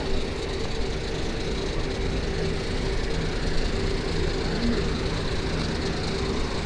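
Steady mechanical hum of vehicles in a city street, with a constant low droning tone throughout.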